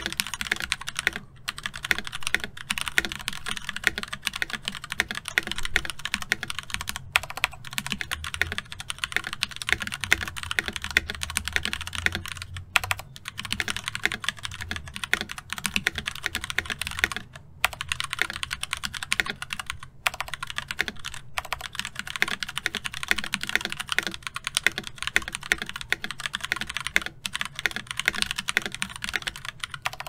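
Continuous fast typing on a Filco Majestouch Ninja mechanical keyboard with stock Cherry MX Red linear switches and lubed stabilizers: a dense stream of key clacks, broken by a few short pauses.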